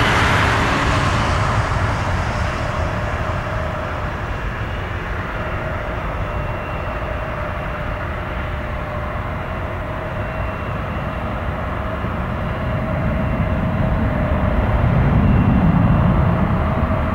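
An Airbus A320's jet engines at takeoff thrust as the airliner lifts off and climbs away. A loud hiss and rumble thins over the first few seconds into a steady rumble with a faint whine, then the low rumble swells again near the end.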